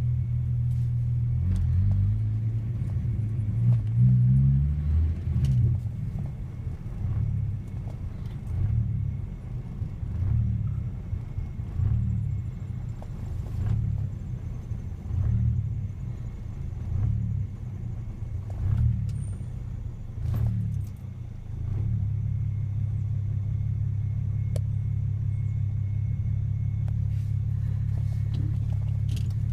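1996 Volkswagen Jetta MK3's 2.8-litre VR6 engine idling roughly, with a brief rise in revs about four seconds in. Through the middle its note swells and sags about once a second before settling steadier. The rough idle is what the owner suspects is a vacuum leak, and it persists after a new PCV valve, a repaired vacuum hose and a new charcoal canister.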